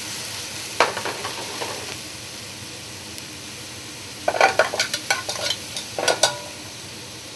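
Halibut and vegetables sizzling in a sauté pan on a gas range, a steady hiss, with metal utensils clinking against the pans: one clink about a second in, a quick run of clinks around four to five seconds in, and a few more near six seconds.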